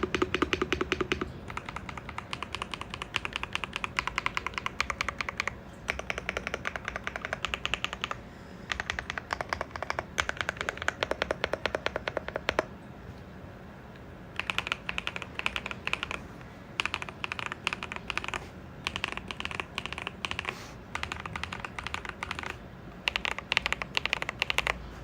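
Fast typing on a Monsgeek M1W mechanical keyboard with lubed Akko V3 Pro Cream Black Pro linear switches: runs of rapid, clacky keystrokes broken by short pauses of about a second.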